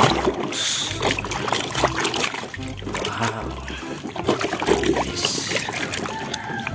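Muddy water sloshing and splashing in a basin as a hand swishes and scrubs a plastic toy vehicle in it.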